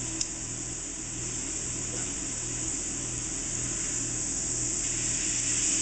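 Filet mignon searing in a hot skillet, sizzling steadily with a hiss that grows a little louder near the end, over a low steady hum.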